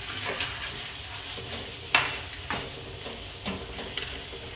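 Onion and tomato chutney sizzling steadily in a kadhai while a spatula stirs it, the spatula scraping and knocking against the pan about five times, loudest about two seconds in.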